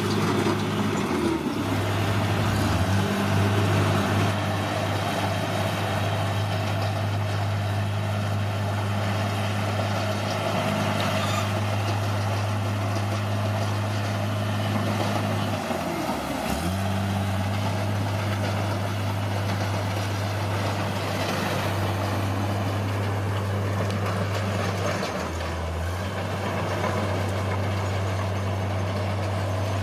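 Bulldozer's diesel engine running steadily under working load, its pitch dropping briefly and recovering three times as the load or throttle changes.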